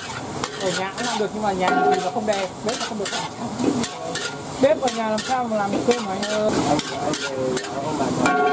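Metal spatula scraping and knocking against a steel wok in repeated quick strokes as fried rice with vegetables is stirred, over the sizzle of the frying.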